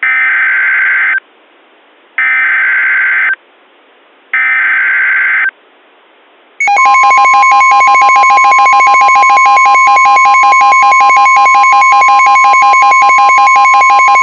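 Emergency Alert System SAME header: three short bursts of buzzing digital data tones, about a second apart. Then, about six and a half seconds in, the loud, steady two-tone EAS attention signal starts and keeps sounding.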